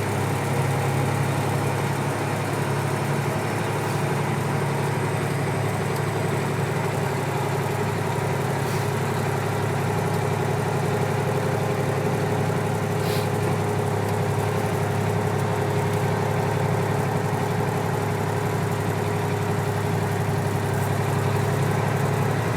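Semi truck's diesel engine running at a steady, unchanging pitch as it moves slowly through flood water: a constant low drone.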